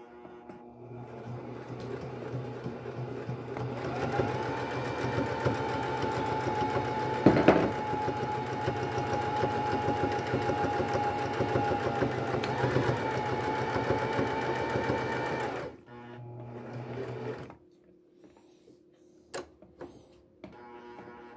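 Electric domestic sewing machine stitching through denim: the motor speeds up over the first few seconds into a steady whine over the needle's fast rattle, with one sharp knock partway through, then stops suddenly. After it a short, quieter burst of stitching and a few single clicks follow.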